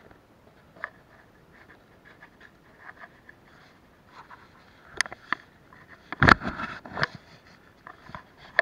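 Handling noise on a chest-mounted camera: scattered light clicks and rubbing, with a louder cluster of knocks and rustling between about five and seven seconds in.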